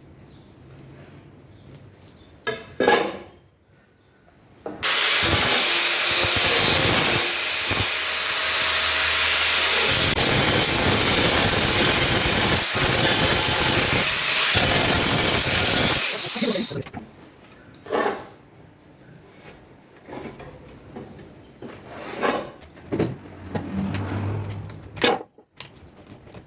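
A power tool grinding against metal, running steadily for about eleven seconds from about five seconds in, in the course of removing rust. Short knocks and scrapes of handling come before and after it.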